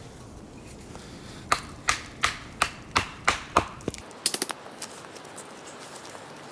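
Firewood being chopped into smaller pieces: seven sharp chopping strikes about three a second, followed by a quick cluster of lighter knocks.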